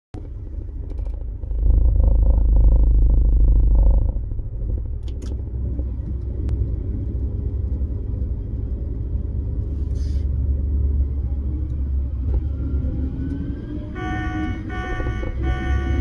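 Combine harvester heard from inside its cab while harvesting: a steady low rumble of the engine and threshing machinery, louder for a couple of seconds near the start. Near the end a repeating pulsed tone comes in over it.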